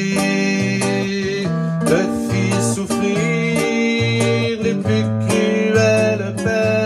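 Godin nylon-string guitar played in a bossa nova rhythm, with plucked chords over a moving bass line, and a man singing along.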